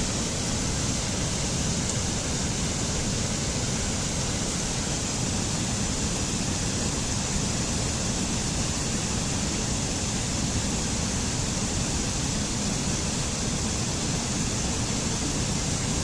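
Mountain stream rushing and splashing over boulders in small cascades: a steady, even wash of water noise.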